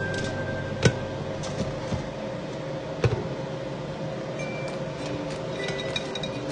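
Two light clinks of kitchenware, about two seconds apart, over a steady hum.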